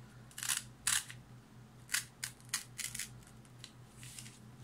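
Glossy black craft paper torn slowly by hand along a sharp crease: a series of short, crisp ripping and crinkling sounds, about seven or eight of them.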